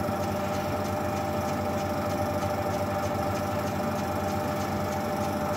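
Metal lathe running slowly, its motor and gearing giving a steady whine with a faint regular tick, while a tailstock die holder is backed off a freshly cut thread.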